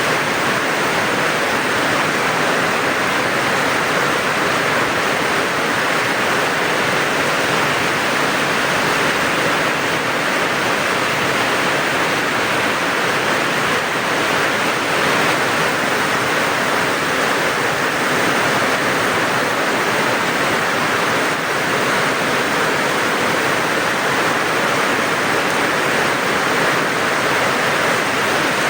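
Steady rain falling, an even unbroken hiss with no thunder or separate drops standing out.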